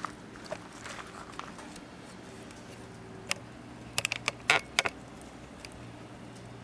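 Burning firewood crackling in a fire pit: scattered sharp pops, with a quick cluster of louder ones about four seconds in.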